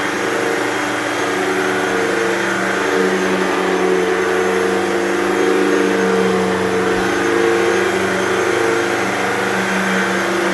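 Hoover Total Home Pet upright vacuum cleaner running: a steady motor hum over a whooshing hiss, its pitch wavering slightly.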